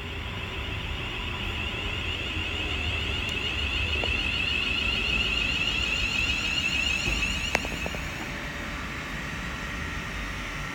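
London Northwestern Railway Class 350 Desiro electric multiple unit running through the station: a steady electric whine over a low rumble, growing louder and then easing off, with a short click about three-quarters of the way through.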